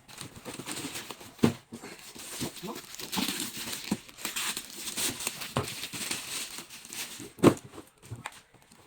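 Crinkling and rustling as shoes and their packaging are handled, with a few knocks. Two sharp ones stand out, about a second and a half in and near the end.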